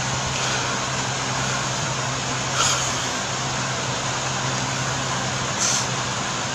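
Steady room background noise, an even hiss with a low hum, broken twice by a short breathy sound a few seconds apart.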